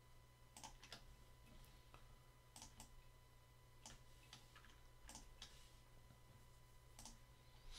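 Faint, scattered clicks of a computer mouse and keyboard, several in quick pairs about a second or two apart, over a low steady hum.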